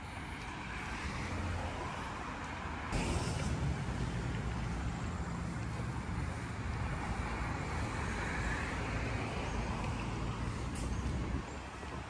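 Road traffic going by. About three seconds in, a heavy vehicle's low engine rumble comes in suddenly and holds until it cuts off shortly before the end.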